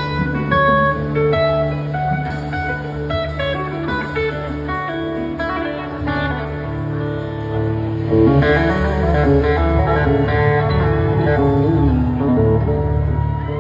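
Electric slide guitar soloing live through an amplifier, with bass and drums underneath. About eight seconds in the solo gets louder and the notes glide up and down in pitch.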